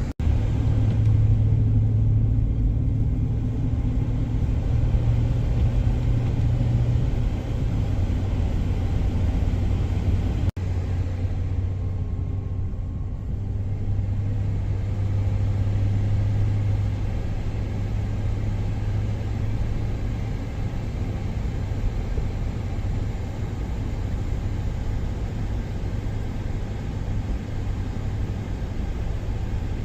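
A car driving on a snowpacked road, heard as a steady low rumble of engine and road noise. The sound drops out for an instant twice, near the start and about ten seconds in.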